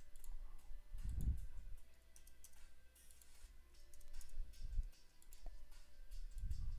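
Scattered computer mouse clicks from menu selections and value changes, over a faint steady hum.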